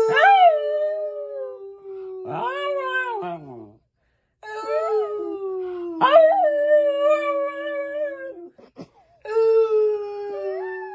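A dog howling in four long drawn-out howls, with a second howling voice at a different pitch sliding up and down alongside a steadier one.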